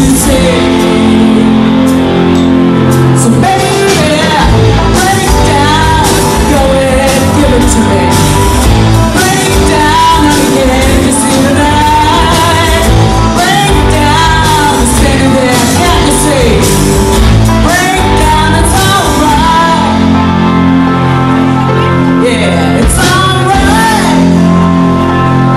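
Live rock band playing: electric guitars, bass guitar and a drum kit, with a lead singer's voice carrying the melody over them.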